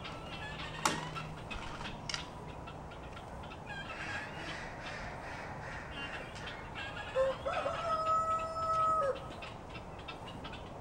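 A rooster crowing once near the end, a single long call of about two seconds held on one pitch, over chatter from other poultry. Two sharp knocks sound in the first couple of seconds.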